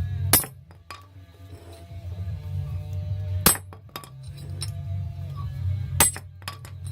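Hammer striking a blunt chisel to drive an old wheel bearing race off a hub flange: three sharp metallic strikes with a ringing tail, about three seconds apart, with lighter clinks of steel between them as the chisel is moved around the race.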